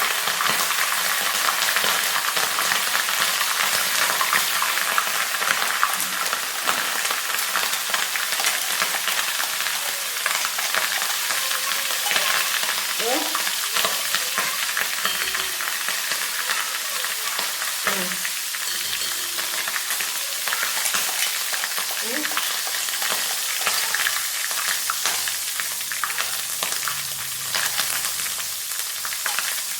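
Herbal leaf-and-flower paste frying in hot coconut oil in an iron kadai: a steady sizzle with fine crackling as the paste's water cooks off into the oil.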